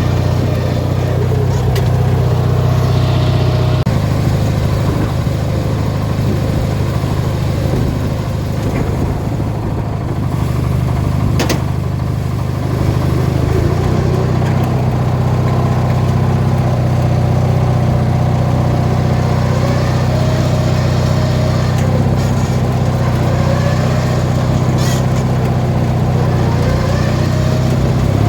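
18 horsepower Briggs & Stratton twin-cylinder engine running steadily, with a slight drop in level about a third of the way in before it picks up again.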